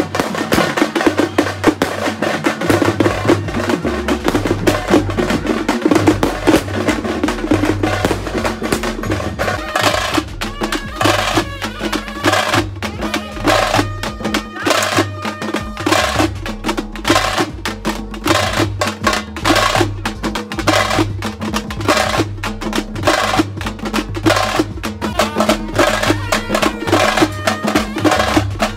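Several dhol drums beaten fast with sticks, a dense, driving rhythm of many strikes. A held high note sounds over the drumming for a few seconds about ten seconds in.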